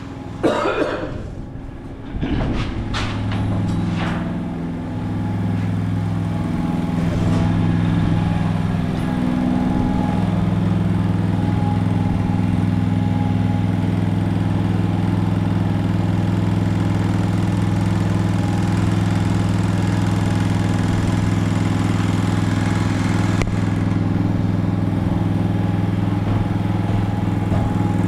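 A small engine running steadily at a constant speed, starting up about two seconds in after a few knocks and holding an even hum.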